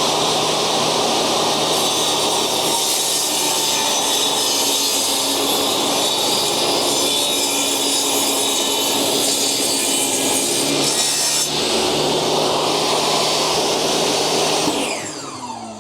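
Electric power tool cutting into a white oak sill board, its motor running steadily under load. Near the end it is switched off and winds down with a falling whine.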